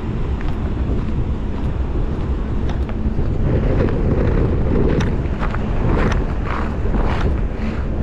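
Wind buffeting the microphone, a heavy low rumble, with scattered short, brighter sounds joining it about halfway through.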